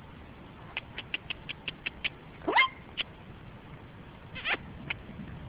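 A quick run of sharp tongue clicks, about six a second, then a short loud rising call and a few more clicks: a person clucking to drive a loose horse on around the arena.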